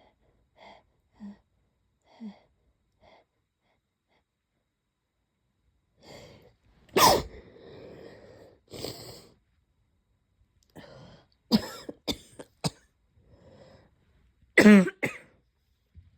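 A person coughing and sneezing in stifled bursts. A few faint short sounds come in the first three seconds, a sharp burst follows a build-up about seven seconds in, a quick run of short bursts comes around twelve seconds, and the loudest burst comes near fifteen seconds.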